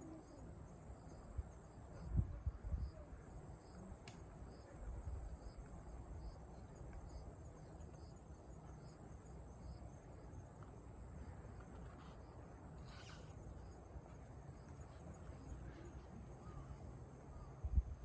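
Faint insects calling: a steady high buzz, with a soft chirp repeating about once a second through the first half, over a low rumble.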